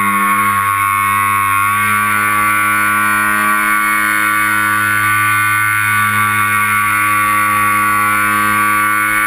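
Twin brushless electric motors and propellers of a Multiplex TwinStar RC plane, heard from a camera mounted on the airframe, running with a steady whine. The pitch steps up slightly a little under two seconds in.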